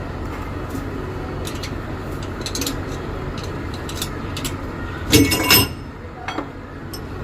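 Metal clinks and knocks from differential parts being worked loose and handled, irregular, with a loud clatter about five seconds in, over a steady background hum.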